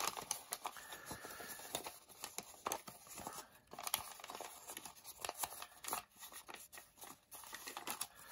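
A sheet of pre-creased origami paper crinkling and crackling in irregular small bursts as hands twist and pinch it along its folded grid lines.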